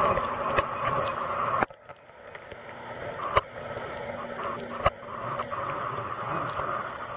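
Muffled underwater noise picked up by a camera in a waterproof housing: a steady hiss with scattered sharp clicks. It drops off suddenly about a second and a half in, then builds back up, with two louder clicks in the middle.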